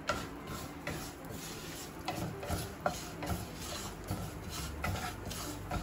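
A spatula stirring and scraping cumin and sesame seeds in melted ghee in a frying pan, in irregular short strokes with light clicks.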